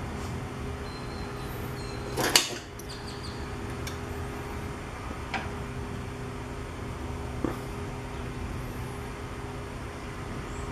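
Steady low mechanical hum, like a running fan, with a sharp metal knock about two seconds in and a few lighter clicks as a hydraulic floor jack is handled.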